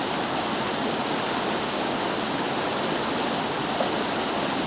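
Steady rush of a rocky stream, water tumbling over boulders in white-water rapids.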